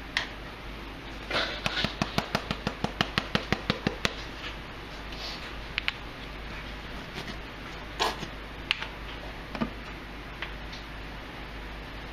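Silicone basting brush slapping and dabbing sauce onto raw ground beef: a quick run of wet clicks, about six a second, for a couple of seconds, then a few single taps.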